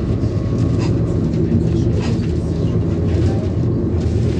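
Interior running noise of a Stadler FLIRT 2 electric multiple unit at speed: a steady low rumble of wheels on the track, with a few faint ticks.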